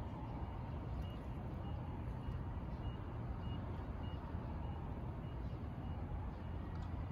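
Steady low rumble with a faint, high reversing alarm beeping about twice a second.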